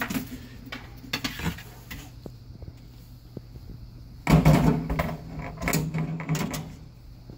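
Handling noises inside a kitchen sink cabinet as the old dishwasher drain hose is worked out of the way: a few knocks at first, then a louder stretch of rubbing and rattling about four seconds in.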